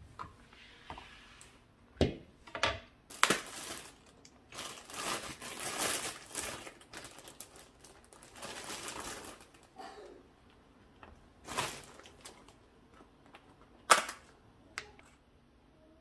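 Kitchen handling sounds: cutting boards knocked and set down on a hard countertop, plastic rustling in two stretches in the middle, and a sharp snap near the end.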